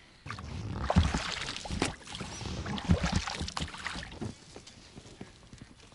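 Oar of an inflatable rowing boat pulling through the water, with splashing and two heavy thumps about one and three seconds in. It goes quieter after about four seconds.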